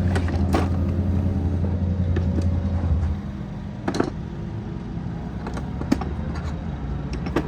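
A steady low motor hum that drops off about three seconds in, with a few sharp metal clicks from hand tools being handled while bolts come off the motorcycle's front brake calipers.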